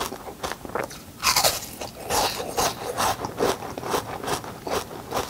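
A mouthful of ice crunched between the teeth, close to a clip-on microphone: a loud bite about a second in, then a run of sharp crunches, a few each second, as the ice is chewed.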